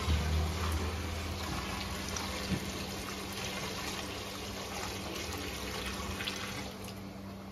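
Fresh milk pouring in a steady stream from a stainless steel milk can into a blue plastic funnel on a milk tank, splashing in the funnel, with a steady low hum underneath.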